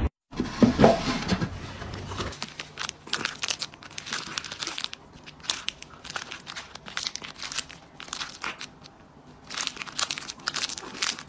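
A cat biting and chewing a crinkly plastic wrapper held in its paws, making dense, irregular crinkling and crackling. The crinkling starts after a louder, brief pitched sound in the first two seconds.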